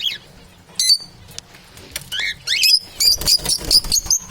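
Parrots calling in short, high chirps and squawks: one at the start and another about a second in, then a quick run of chirps from about two seconds in.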